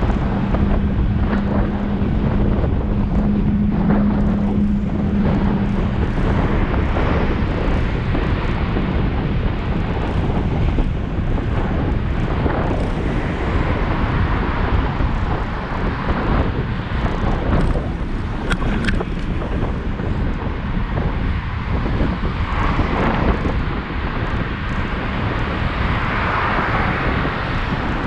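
Wind buffeting the microphone of a GoPro Hero7 Black action camera on a moving bicycle, a steady loud rushing noise. A steady low hum sounds under it for the first several seconds.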